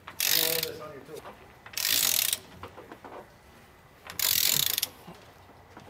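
Ratcheting socket wrench clicking in three separate strokes, each about half a second long, as the bolts of a steering stabilizer bracket are tightened down.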